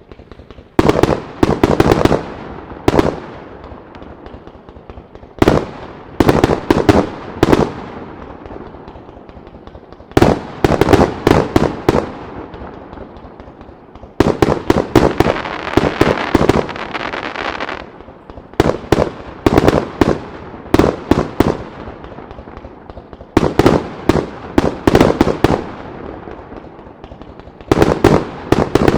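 Aerial firework shells, mostly round break-open shells, bursting in rapid clusters of several loud bangs every few seconds, each cluster ringing on in echoes. Around the middle there is a longer stretch of dense crackling between the bangs.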